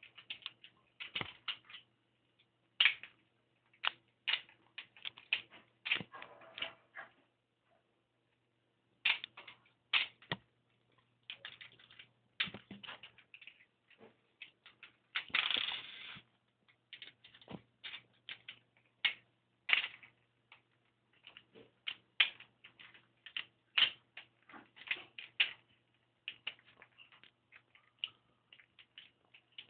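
Cockatiel pecking at and flicking small backgammon pieces in an open travel backgammon case: irregular clicks and clatters, with a longer rattle about fifteen seconds in.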